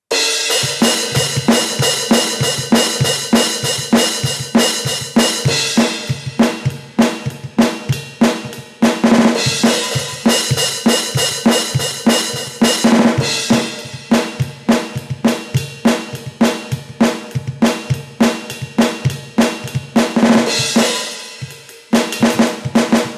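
Alesis Surge Mesh electronic drum kit played in a steady groove, its module's sampled kick, snare, hi-hat and cymbals recorded directly through a computer. The kit is a user kit built from preset kit one with two drums swapped, and cymbal crashes flare up several times through the playing.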